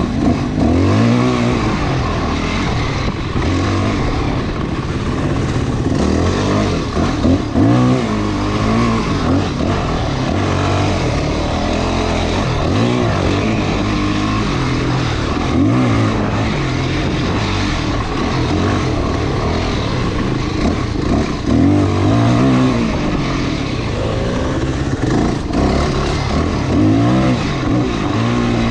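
Off-road motorcycle engine being ridden along a dirt trail, its revs rising and falling every second or two as the throttle is worked, over a constant rough rushing noise and occasional knocks.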